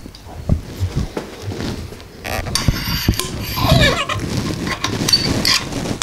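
TEC progressive coil spring sliding down into a motorcycle fork tube: a few light knocks, then metal scraping and rattling against the tube, with a short falling squeal about halfway through.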